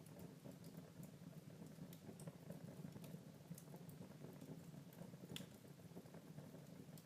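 Wood fire burning in a fireplace, faint: a low steady rumble of flames with scattered small crackles and pops, one sharper pop about five seconds in.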